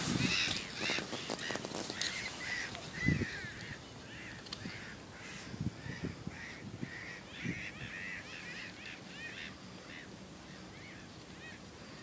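Birds calling over and over in the background, many short honk-like calls. In the first couple of seconds there is rustling, and a few dull thumps follow as a large carp is handled on a wet unhooking mat.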